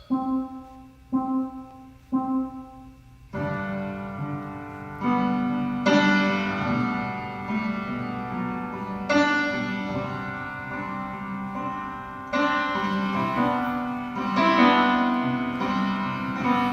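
Recorded piano intro of a song: three single repeated notes about a second apart, then full sustained chords from about three seconds in.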